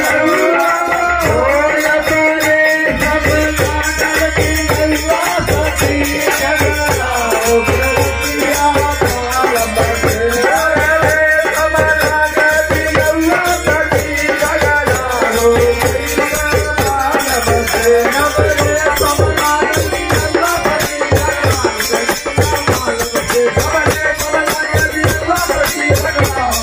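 Men singing a Bhojpuri Holi folk song into microphones, with small hand cymbals clashing in a fast, steady rhythm over a low repeating beat.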